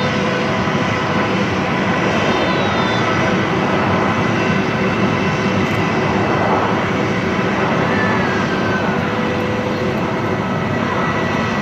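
Airbus A321 jet engines running at a steady, loud level during its departure from the runway.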